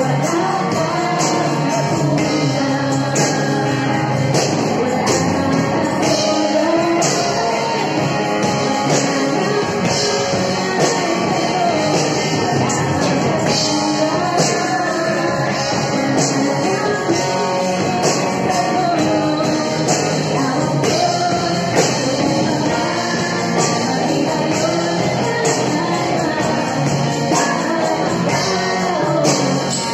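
Live worship song by a church praise band: a woman singing lead over electric guitars and a steady drum beat.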